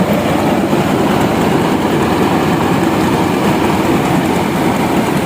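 Diesel engine of a mobile rice mill running steadily, driving the mill as it hulls and polishes rice: a loud, even machine noise with a fast low pulse.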